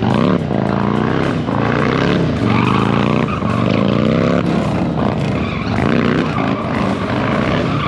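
Motorcycle engine revving hard and repeatedly, its pitch climbing and then dropping about once a second, as a rider performs stunts.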